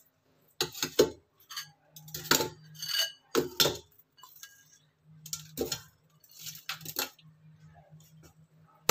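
Kitchen clatter as crushed tomato is tipped into an aluminium pot: a series of separate knocks and clinks of a container against the pot, some ringing briefly.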